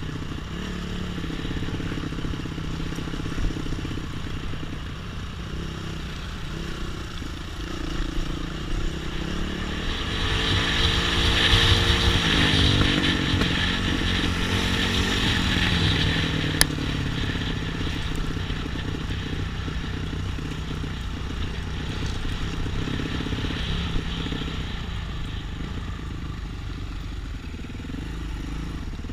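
Off-road trail motorcycle engine running while riding. About ten seconds in it gets louder, with a hiss on top and the engine pitch rising and then falling, before settling back to a steadier run. A single sharp click comes a little past halfway.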